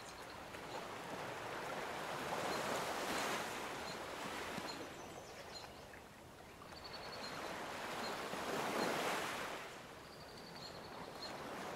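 Ocean waves washing in and receding as a soft background ambience, in two slow swells about six seconds apart.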